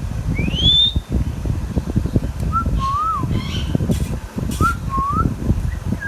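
Ringneck parrot whistling: a rising whistle near the start, then two pairs of short rising, wavering whistled notes, over a constant low rumble.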